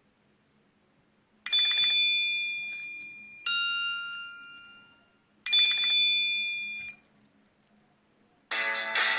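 Nokia C6-00 phone playing ringtones through its loudspeaker. Three bell-like chimes about two seconds apart, high, lower, then high again, each struck sharply and fading. A guitar-style ringtone begins near the end.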